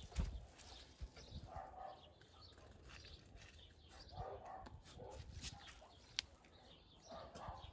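Faint, intermittent animal calls in the background, with a single sharp click about six seconds in.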